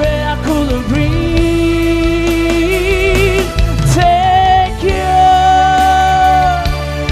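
Live band performing: male singers holding long notes, one of them wavering in vibrato, over keyboard and bass guitar.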